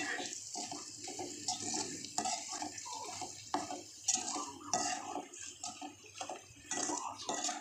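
Slotted spatula stirring and scraping chicken in oily masala in a metal pan, with irregular clinks against the pan over a wet frying sizzle. The chicken is being stirred steadily so the masala does not catch on the bottom.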